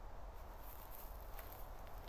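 Faint outdoor ambience: a low wind rumble on the microphone with scattered small clicks and rustles from about half a second in. The falcon makes no call.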